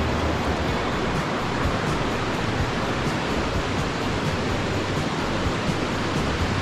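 Mountain river rushing over rocks: a steady, even rush of water.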